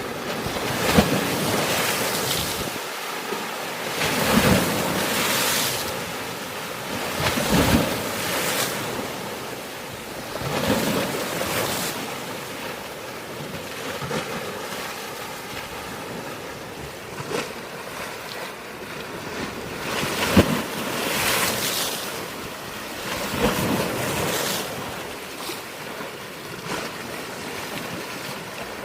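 Sea waves breaking on a rocky shore: a continuous rush of surf that swells every few seconds, several waves landing with a sharp crash and splash.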